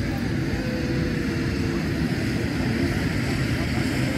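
Jet airliner's engines rumbling steadily as it flies low over the airfield.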